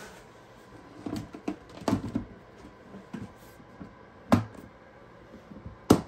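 Irregular knocks and clicks of plastic storage drawers and tubs being handled, with two sharp, loud knocks in the second half.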